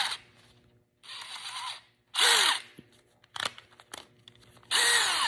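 Cordless drill motor run in three short trigger bursts, each whining briefly and winding down in pitch, as the keyless chuck is spun fast to clamp a drill bit. A few sharp clicks come between the bursts.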